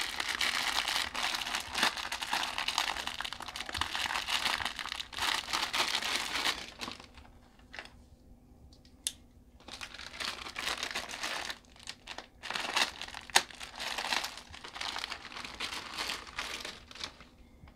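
Crinkling and crackling of a plastic wrapper as a microfiber cleaning cloth is unpacked, dense for about seven seconds, a short lull, then more crinkling in spurts.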